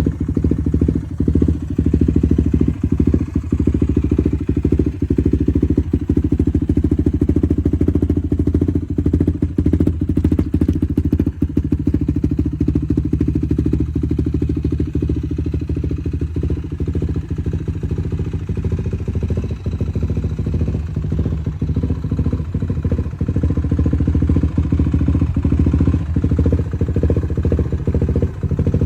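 Suzuki LT-R sport quad's single-cylinder engine idling steadily and loudly just after being started, a low, even run of firing pulses with no big revs.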